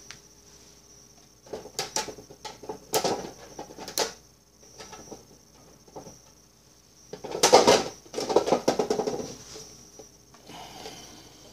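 Plastic containers and lids being handled on a tabletop: scattered clicks and knocks, then a louder clattering rattle about seven and a half seconds in.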